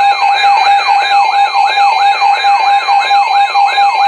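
Weather alert radio alarm sounding for a new warning: a siren-like tone sweeping down in pitch about three times a second over a steady alert tone.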